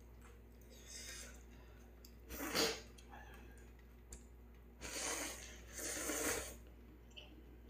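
A person slurping instant ramen noodles: three airy sucking draws, a short sharp one about two and a half seconds in, the loudest, then two longer ones around five and six seconds in.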